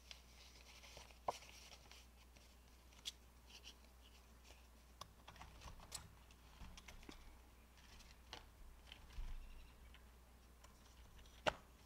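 Faint handling of paper cash envelopes and banknotes: soft rustles and a scattering of light clicks and taps, the sharpest about a second in and near the end.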